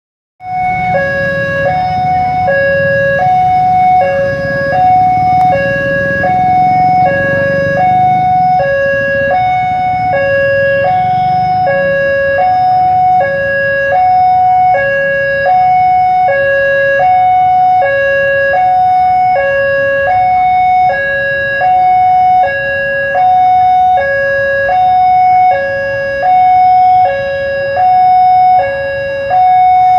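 Railway level-crossing warning alarm sounding: an electronic two-tone signal switching evenly between a high and a low tone, each held about 0.7 s, which signals that a train is approaching and the barrier is closing. Motorbike and car engines run underneath for the first dozen seconds as traffic clears the crossing.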